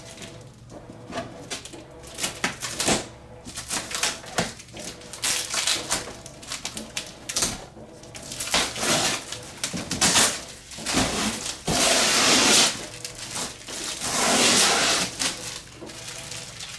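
Packing tape being peeled and ripped off a cardboard box, with the cardboard crackling and knocking. There are many short rips and crackles, then two longer, loud tearing pulls near the end.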